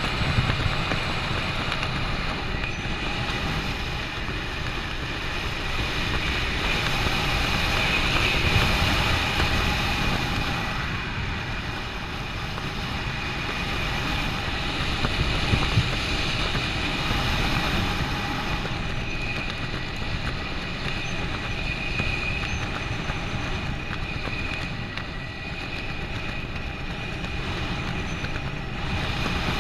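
Steady wind rushing over the microphone of a skydiver's head-mounted camera during the descent under a parachute canopy, swelling and easing slowly, with a faint steady high whistle.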